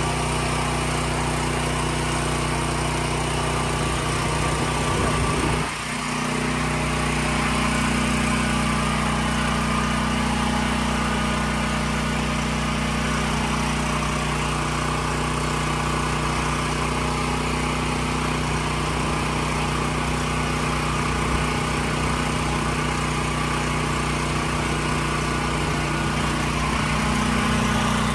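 Portable generator engine running steadily, supplying power during an outage. Its note dips briefly about six seconds in.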